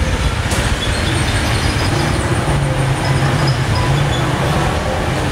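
Honda Wave underbone motorcycle's single-cylinder four-stroke engine running steadily on a roller test lane, with a low hum that swells slightly for a second or so around the middle.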